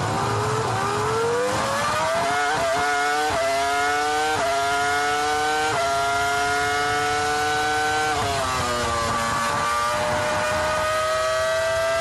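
Ferrari Formula One car's V10 engine at racing speed, rising in pitch as it accelerates and changing up through the gears four times, each shift a quick drop in pitch. About eight seconds in it falls as the driver lifts off and changes down for a corner, then slowly climbs again.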